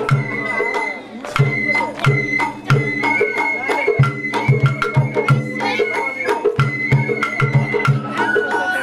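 Japanese festival-float hayashi music: a high bamboo flute playing a melody of held, stepping notes over steady drumbeats about three a second, with sharp clicking percussion throughout.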